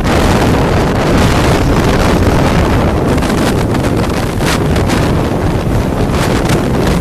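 Loud, steady rush of wind buffeting the microphone aboard a rigid inflatable boat running fast, with the hiss of spray and wake off the hull.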